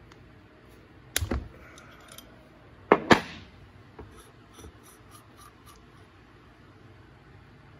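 Metal hand tools on a carburetor's fuel shutoff solenoid as it is unscrewed: a short rattle of clicks about a second in, two sharp metallic clacks near three seconds, then light ticking.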